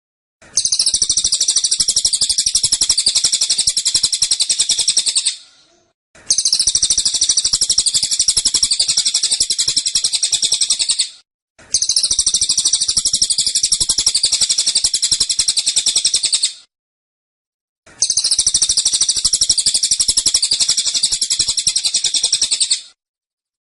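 Cililin songbird singing its rapid-fire 'tembakan' song: four long bursts of dense, fast-repeated high notes, each about five seconds, with short silent breaks between them.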